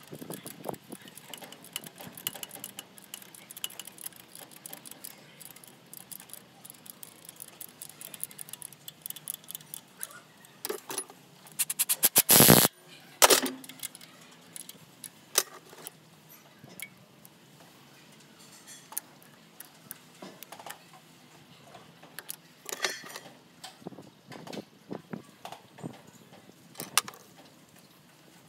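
Clinking and rattling of metal hand tools against engine fittings as a diesel truck's water pump and coolant pipework are worked on, with quick runs of small ticks. About twelve seconds in comes a loud, harsh burst of noise lasting about half a second, then a shorter one just after.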